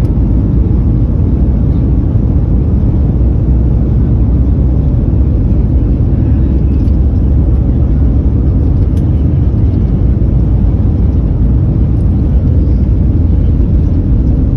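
Steady, loud low rumble of an airliner cabin: engine and airflow noise heard from a window seat inside the plane.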